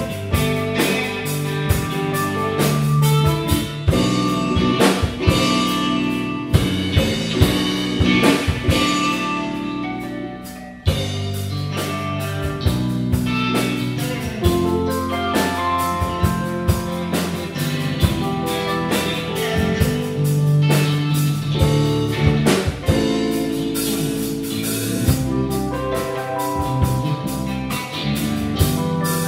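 A live rock band playing: electric guitar, bass guitar, keyboard and drum kit. About ten seconds in the sound briefly drops away, then the full band comes back in sharply.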